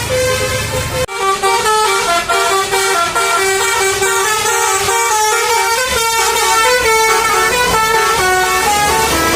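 Bus telolet horn, a multi-note musical air horn, playing a quick tune of short stepped notes. The sound breaks off abruptly about a second in, then the tune carries on.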